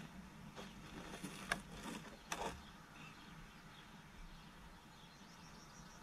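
Faint rustling and a couple of short scrapes from plastic plant pots being handled as seedlings are lifted out of a plastic tray.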